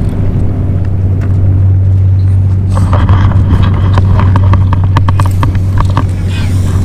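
A steady low engine drone, with a quick run of clicks and knocks starting a little under three seconds in.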